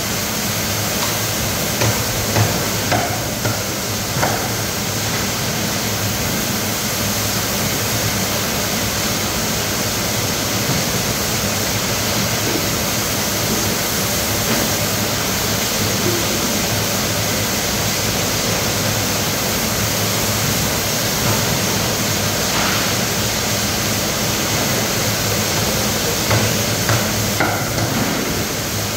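Steady rushing background noise with a few sharp knocks of a cleaver chopping threadfin on a wooden chopping block, a cluster a couple of seconds in and several more near the end.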